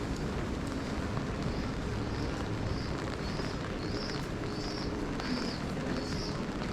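Steady low street rumble with wind on the microphone. From about a second and a half in, a high short chirp or squeak repeats about twice a second.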